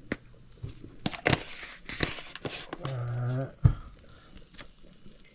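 Kitchen handling sounds while seasoning meat: a rustle of plastic packaging, scattered light clicks, and one sharp knock a little past halfway.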